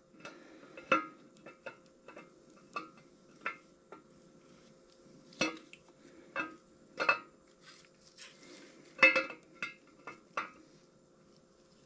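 Camshaft being slid through the cam bearings of an LM7 5.3 LS engine block, its lobes and journals clinking lightly against the bearings and block. There are about a dozen short metal clinks at irregular moments, the loudest about nine seconds in.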